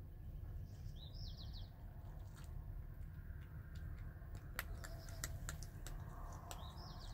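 A cat eating: a run of sharp little clicks and smacks from its chewing and licking in the middle, over a steady low rumble. A short, rapid chirp sounds twice in the background, about a second in and near the end.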